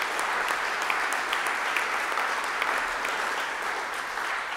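Audience applauding: a dense, even clatter of many hands clapping, easing off a little near the end.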